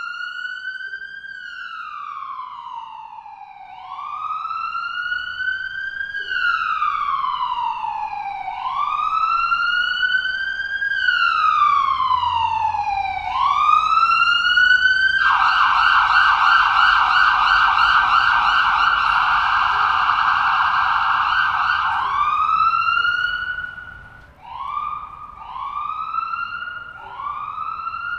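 Electronic emergency-vehicle siren in a slow wail, its pitch rising and falling about every four to five seconds. About halfway through it switches to a fast warbling yelp for several seconds, then ends in short, quick rising whoops.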